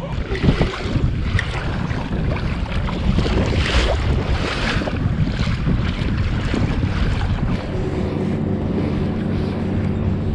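Wind buffeting the microphone over waves on the sea around a fishing kayak, with a few small knocks. A steady low hum comes in about three-quarters of the way through.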